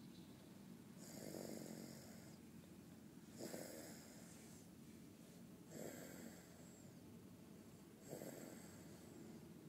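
Faint, regular snoring: four breaths about two and a half seconds apart, each with a high hiss.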